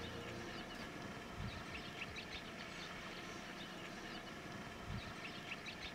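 Evening bush ambience: scattered short bird chirps over a faint, steady insect drone, with two soft low thumps, one about a second and a half in and one near the end.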